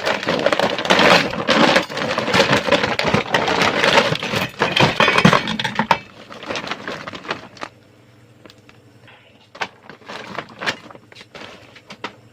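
A rice sack rustling while amplifier kit parts clatter and clink as they are pulled out of it. About six seconds in this dies down to quieter scattered clicks and knocks as the parts are handled and set down.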